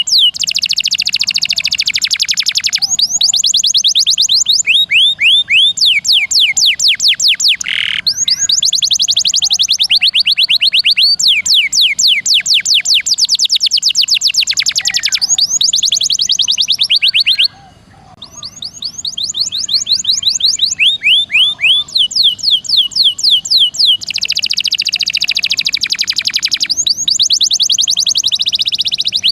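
Domestic canary singing loud, fast rolling trills of rapidly repeated high, down-slurred notes in long runs, with a brief break about two thirds of the way through.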